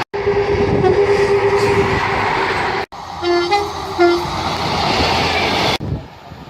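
British train two-tone horns over the rumble of moving trains. First a horn note held for about two seconds, then after an abrupt cut a few short toots on two notes, low, high, then low. Near the end it cuts to quieter train running noise.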